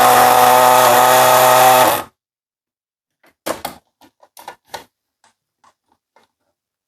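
A toy's small electric motor runs with a steady buzz, then cuts off suddenly about two seconds in. A handful of light clicks and taps follow.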